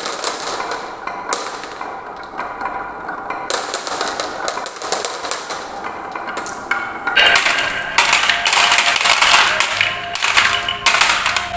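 Marbles rolling and clattering down wooden and plastic marble run tracks, a steady run of clicks and knocks with ringing tones. About seven seconds in the clicking grows louder and denser as more marbles hit the track together.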